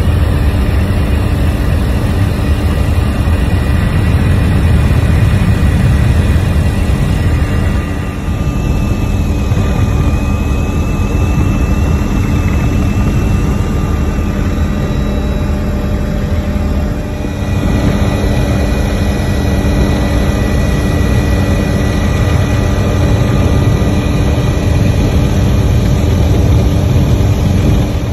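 Helicopter cabin noise in flight: engine and rotors running steadily, a dense low rumble with a few steady whining tones above it.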